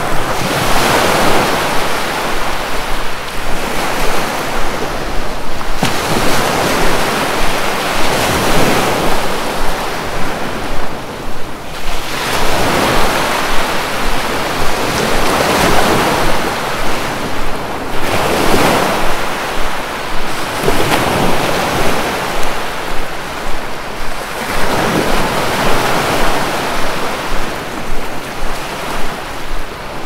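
Ocean waves breaking on the shore and washing back, the surf swelling into a surge every three to four seconds over a steady wash.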